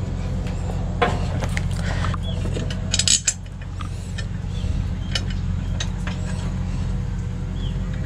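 Bolts, nuts and other small metal parts clinking and scraping as they are handled, with one sharper metallic clatter about three seconds in, over a steady low hum.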